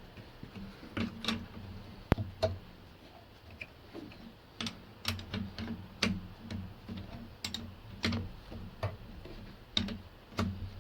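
Ratchet spanner clicking in short irregular runs while snugging up the top-mount nut of a Daewoo Matiz front shock absorber, nipped only lightly to hold it for now.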